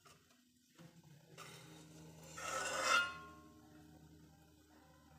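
A metal spatula scraping once across the inside of a metal kadai, a short rising scrape about two and a half seconds in, over a faint low hum.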